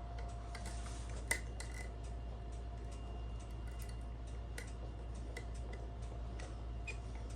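Small scattered metal clicks and ticks of homemade lever picks working the levers inside a Wellington five-lever lock, one sharper click about a second in, over a steady low hum.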